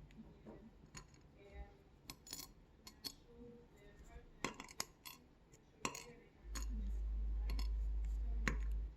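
Small metal parts of a disc detainer lock, its discs and spacers, clicking and clinking as they are handled and set down, in irregular single ticks. A steady low hum comes in about six and a half seconds in and stops just before the end.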